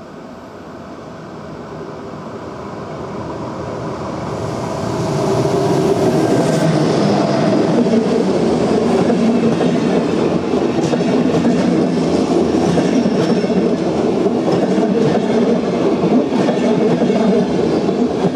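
Electric locomotive-hauled Intercity train approaching and passing close by: a rising rush over the first five seconds that becomes loud, steady rolling of steel wheels on rail as the coaches go by, with repeated clicks of wheels over the rails in the second half.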